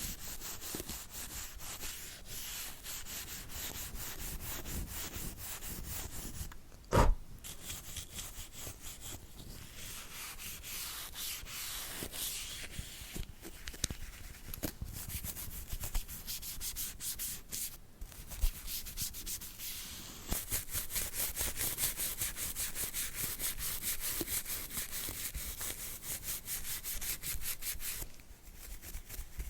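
Brush scrubbing in quick, repeated rubbing strokes, with one sharp knock about seven seconds in. The strokes grow faster and louder about two-thirds of the way through, then stop shortly before the end.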